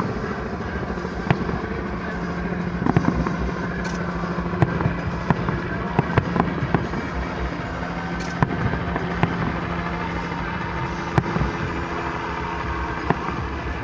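Aerial fireworks shells bursting: sharp bangs and crackles at irregular intervals, roughly one a second, over a steady low hum.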